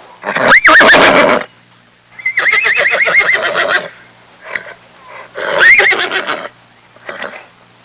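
A horse whinnying three times, each call rising sharply in pitch and then wavering. The middle whinny is the longest and quavers. A short, fainter call follows near the end.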